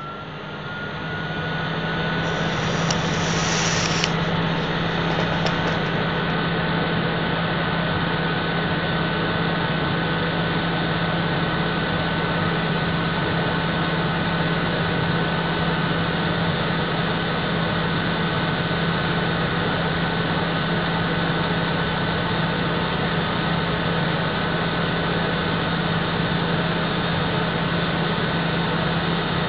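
Vacuum cleaner motor spinning up, its whine rising and settling within the first couple of seconds, then running steadily with a high whine over a low hum and a rush of air.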